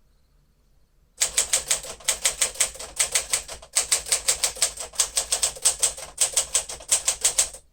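1956 Smith-Corona Clipper manual typewriter typed on at speed: a rapid run of sharp key strikes, about six a second with a few short breaks, starting about a second in.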